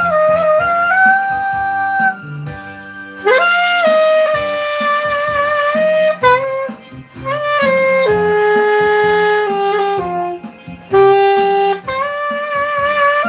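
Saxophone playing a slow melody of long held notes, scooping up into one note about three seconds in, over a soft lower accompaniment.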